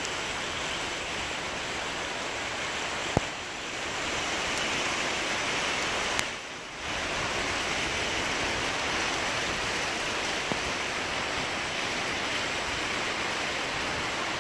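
Heavy rain falling steadily on trees and leaves, a dense even hiss with a few sharp ticks of drops.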